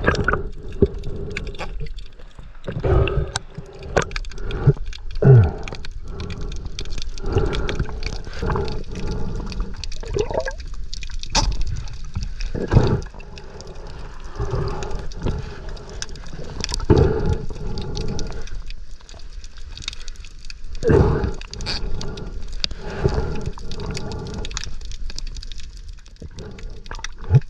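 Water sloshing and gurgling, with irregular splashes and knocks throughout.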